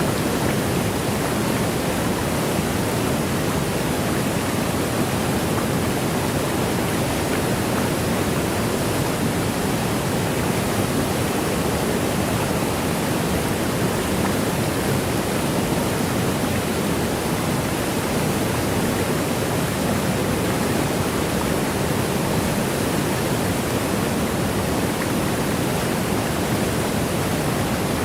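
Waterfall: a steady, even rush of falling water, with no breaks or changes, fullest in its low-middle range.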